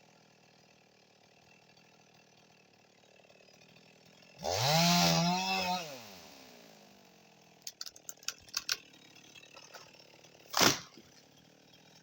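Husqvarna 55 Rancher chainsaw revved once, about four seconds in: its pitch climbs, holds for about a second and drops back. A quick run of clicks follows around eight seconds, and a single sharp knock comes near the end.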